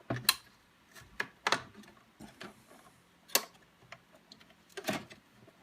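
Plastic latch hooks and their springs being snapped into a Zebra thermal label printer: irregular sharp clicks and taps, a few louder ones among fainter ticks.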